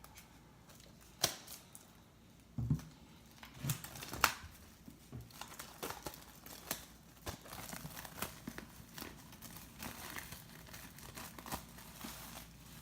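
Plastic wrapping being torn and peeled off a Blu-ray case: irregular crinkling and crackling, with a few louder sharp tears in the first few seconds and a run of small crackles after.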